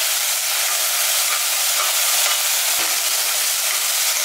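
Chopped onions and ginger-garlic paste frying in hot oil in an aluminium pressure cooker, with a steady sizzle. A metal slotted spoon stirs and scrapes against the pan.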